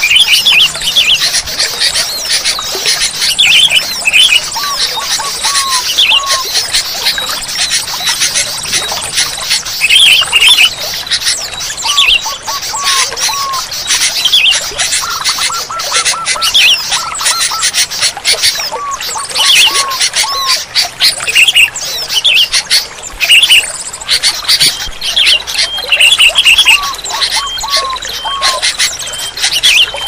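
Sooty-headed bulbuls calling: short bubbly phrases repeating again and again over a dense chatter of high chirps, with a lower run of three or four short falling notes every few seconds.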